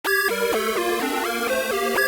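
Instrumental background music that starts abruptly at the very beginning: a quick melody of short notes changing about four times a second over a light, steady beat.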